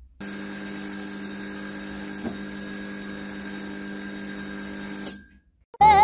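Homemade fire alarm going off: a steady ringing tone that stops suddenly about five seconds in. It has been set off by a lighter held to the ceiling smoke detector, so the detector is working. A brief loud, different sound begins right at the end.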